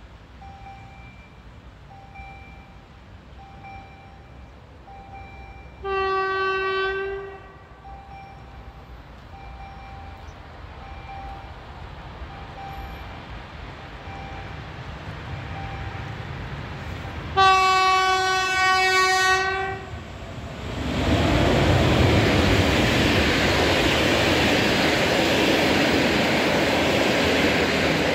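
EP05 electric locomotive sounding its horn twice, a short blast and then some ten seconds later a longer, louder one, while a level-crossing warning signal beeps about once a second. The train then passes close by, its coaches running past with a loud, steady rolling noise.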